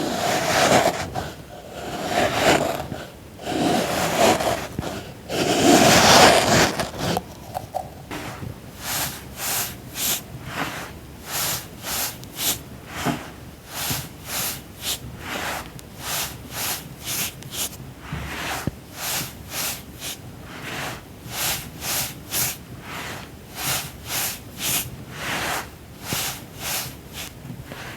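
Crunchy sand being cut and crumbled with a tool: several long, loud scraping crunches over the first six or seven seconds, then a run of short, crisp cuts at about two a second.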